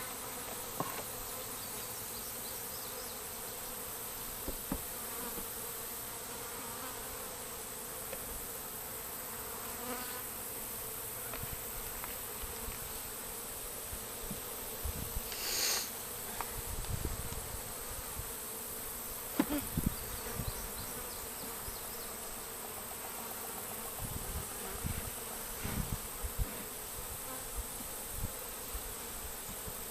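A swarm of honey bees buzzing steadily around an open hive box they have just moved into. Scattered short knocks and bumps come through, most of them in the middle and near the end.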